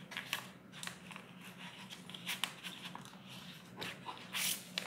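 Self-adhesive vinyl sheet being peeled from its paper backing and handled: faint, scattered rustles and crinkles, with a louder rustle near the end.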